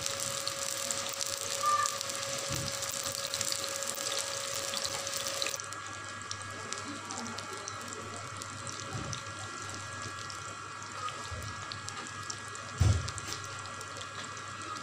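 Beef seekh kebabs frying in ghee on a flat tawa over low heat: a steady sizzling hiss that turns softer about five seconds in. A single brief thump near the end.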